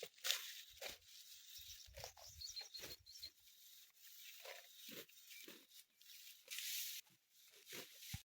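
Dry wheat stalks being cut by hand with a sickle: irregular crunchy, tearing strokes, one after another. A bird chirps briefly about two and a half seconds in.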